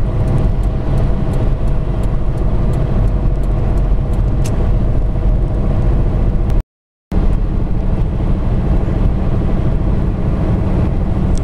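Steady low rumble of a car's engine and tyres heard from inside the cabin at highway speed. The sound drops out completely for about half a second a little past halfway.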